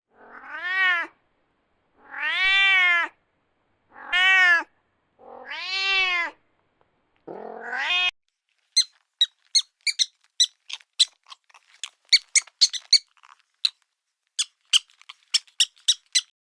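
An animal calling five times, each a drawn-out cry about a second long that rises and falls in pitch. These are followed by a run of quick, high-pitched chirps, two or three a second.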